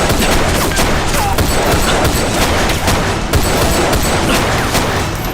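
Battle gunfire: rifle and machine-gun shots going off thick and fast and overlapping, with no break.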